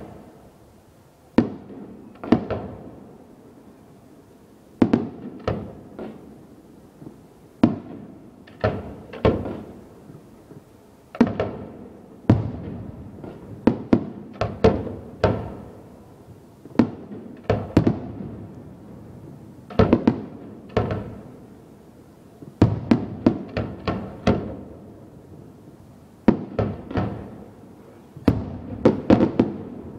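Fireworks display: aerial shells bursting in a run of sharp bangs at uneven intervals, each trailing off in echo. The bangs come in quicker clusters in the second half and especially near the end.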